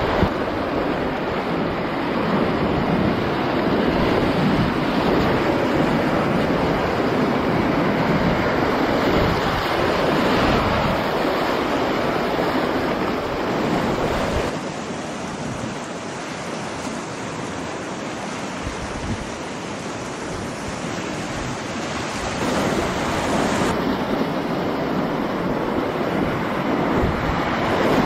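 Rushing whitewater of a river rapid, heard from the kayak, with water splashing over the boat and camera. The rush drops to a softer level for several seconds midway, then picks up again.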